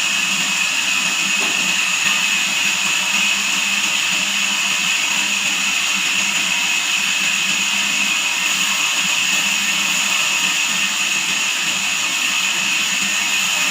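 Band sawmill running steadily: a constant machine rush with a high-pitched whine over it, unchanging throughout.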